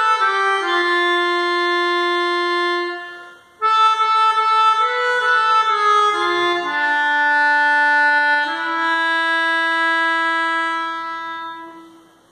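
Melodica played solo: a hymn melody in long held reedy notes, one note at a time. The sound breaks off for a moment about three seconds in, then resumes, and the last long note fades out near the end.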